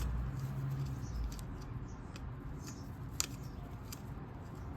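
Small sharp clicks and light handling noise from wires and plastic plug connectors being worked by hand while the temperature probe is disconnected from a pellet grill's controller. The loudest click comes about three seconds in, after a low hum in the first second.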